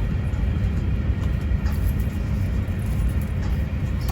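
Steady low rumble inside an Airbus A350-1000 airliner cabin, from the air-conditioning running while the plane is boarding, with a few faint clicks.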